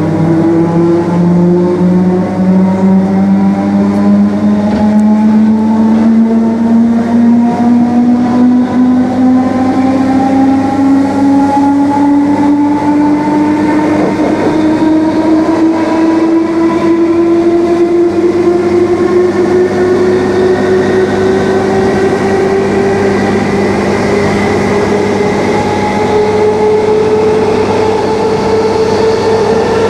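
Electric multiple unit's traction motors whining from inside the carriage, the whine rising steadily in pitch as the train accelerates, over the rumble of the train running on the track.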